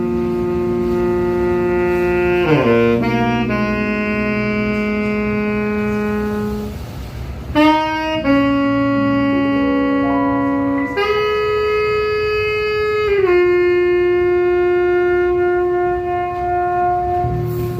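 Slow jazz ballad played live: a saxophone holds long notes over sustained keyboard chords, the chords changing every few seconds.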